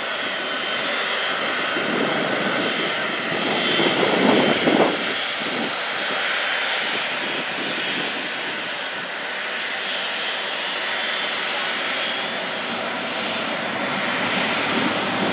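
Jet engines of a Boeing 777-200ER running at low taxi thrust: a steady jet hiss with a faint high whine running through it, and a brief louder rumble about four to five seconds in.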